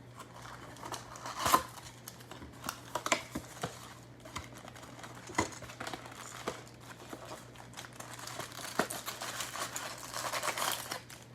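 Plastic wrapping on a box of trading cards being torn and crinkled open, with irregular sharp crackles, the loudest about a second and a half in, and a denser stretch of crinkling near the end.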